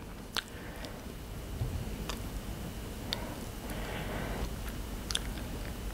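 Quiet hall room tone with a handful of short, sharp faint clicks spaced irregularly through it.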